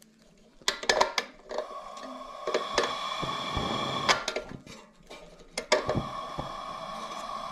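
Propane Coleman lantern: a few light clicks and knocks as it is handled at the valve, then from about a second and a half in a steady gas hiss with a faint high whistle.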